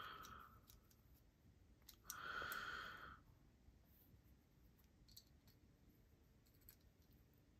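Near silence with a few faint clicks from a ratchet-type haptic fidget coin being turned in the hand. About two seconds in there is one brief sound lasting about a second.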